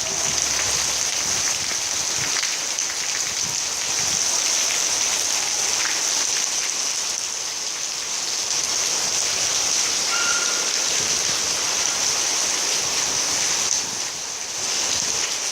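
Steady rain falling, an even hiss of rain with a brief lull near the end.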